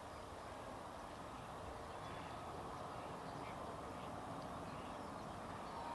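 Distant jet engines of an Airbus Voyager KC3 tanker on approach: a steady rumble and hiss growing slowly louder, with a few faint bird calls over it.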